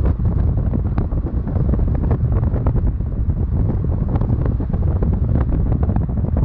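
Wind buffeting the microphone: a loud, steady low rumble with constant crackling.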